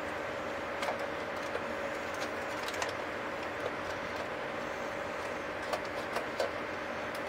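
Scattered small clicks and taps from hands handling a Bronica ETRS camera body and its prism finder, over a steady background hiss with a faint hum.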